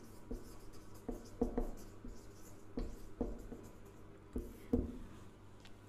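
Marker pen writing on a whiteboard: a string of short, faint, irregular scratching strokes as a word is written.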